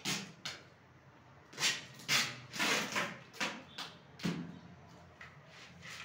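A series of irregular knocks and scuffs, about eight in a few seconds, loudest in the middle, over a faint low hum.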